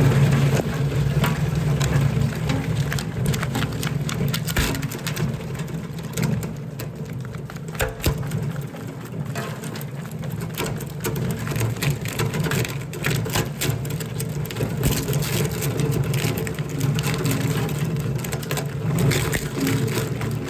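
Industrial copper wire pre-shredder running, a steady motor hum under frequent sharp cracks and snaps as automotive wire harnesses, plastic connectors still on, are chopped.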